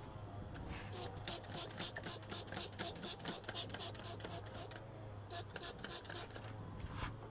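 Sandpaper rubbed back and forth over wood by hand: quick rasping strokes, several a second, coming in runs with short breaks, over a steady low hum.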